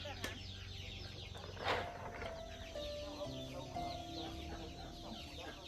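Chickens clucking, with many quick high peeps running through, and a short sharp knock a little under two seconds in.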